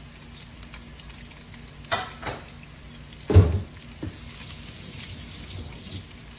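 Eggplant rice and spice powder sizzling faintly in a pan on the heat. A few light clicks come in the first two seconds, and a dull thump about three and a half seconds in is the loudest sound.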